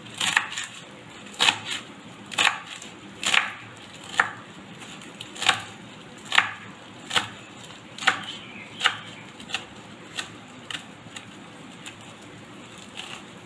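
Kitchen knife chopping fresh mint leaves on a wooden cutting board: separate knocks of the blade on the wood, about one a second, growing sparser and fainter near the end.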